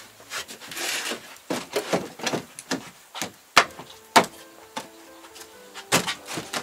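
Background music, with wooden formwork boards being handled: a rubbing scrape about a second in, then several sharp wooden knocks, the loudest around three and a half, four and six seconds in.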